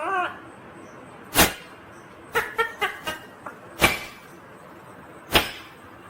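Ringneck parakeet calling: three short, sharp squawks spaced about a second and a half apart, with a quick run of brief chirps between the first two.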